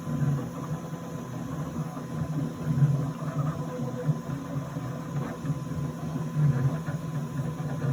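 Bambu Lab X1 Carbon 3D printer running a print: its motors hum and whir, with the sound shifting in strength and pitch as the print head moves about.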